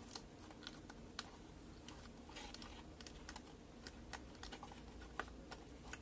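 Faint, irregular small clicks and taps of fingers handling a wire and the plastic housing while fitting the wire onto a terminal of a table fan's 3-speed regulator switch.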